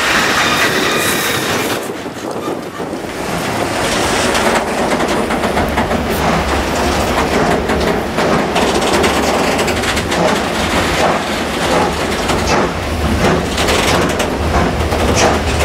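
Coal hopper wagons rolling along the rails with a thin wheel squeal in the first second or two. After a break, a steady rail rumble as the coal train hauled by steam locomotive 52 8079 approaches, with sharper beats growing more distinct near the end.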